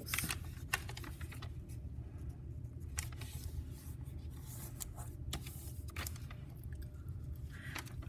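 A square of origami paper being folded and creased by hand: scattered soft crinkles and taps of paper under the fingers, over a low steady hum.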